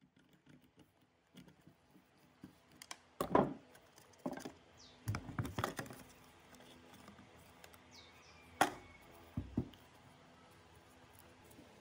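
Rusty metal parts of an old electric air blower being handled and knocked: irregular clunks and scrapes of the motor housing and blower casing. The loudest knocks come about three seconds in and again past eight seconds.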